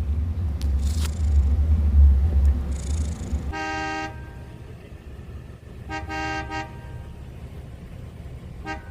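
A low rumble for the first few seconds, then a car-type horn honking: a half-second blast, another about two seconds later, and a run of quick short toots near the end.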